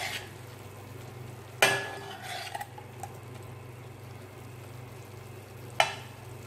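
Metal spoon stirring chopped vegetables in a pan over a faint sizzle, with a sharp ringing clank of metal on the pan about a second and a half in and another near the end. A steady low hum runs underneath.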